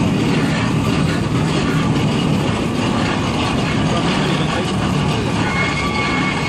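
Steam traction engine rolling past close by: a steady, loud rumble from its engine and its solid-rubber-tyred wheels on the road.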